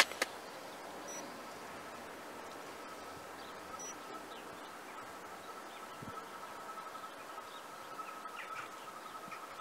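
Distant approaching electric train: a faint, steady high whine over quiet open-air background, growing slightly stronger near the end, with a few faint bird chirps.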